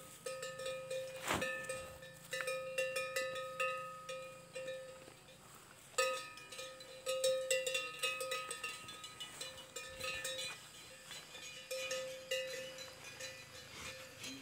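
Bells on water buffaloes clanking irregularly as the animals move, each stroke ringing on briefly at the same pitch.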